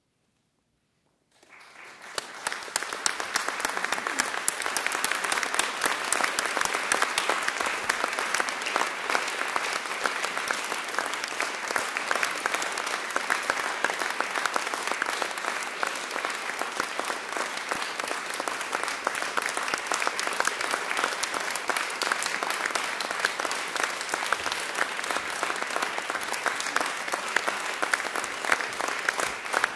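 Audience applauding. Silent for about a second, then the clapping starts, builds quickly and carries on steadily.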